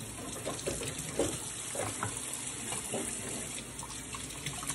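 Hot water running steadily from a kitchen tap into a metal sink, splashing over tuna cans as their lids are rinsed clean.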